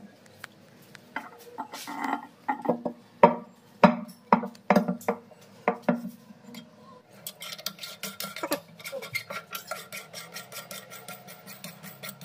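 Hard knocks and clunks as the ceramic wash basin is shifted and set down on the stone counter. Then, from about seven seconds in, a rapid run of light metallic clicks, about five or six a second, as the chrome waste coupling's nut is worked on its thread under the counter.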